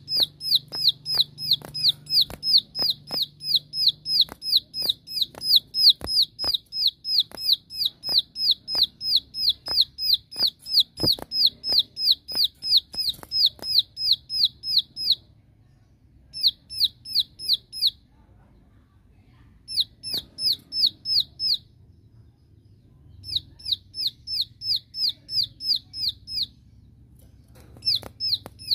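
Caged plain prinia (ciblek sawah) giving its rapid 'nembak' (shooting) call, a challenge to rivals. It is a long unbroken run of sharp downslurred notes at about three a second, then shorter bursts of notes with pauses between. Sharp wing-snap clicks sound among the notes in the first half.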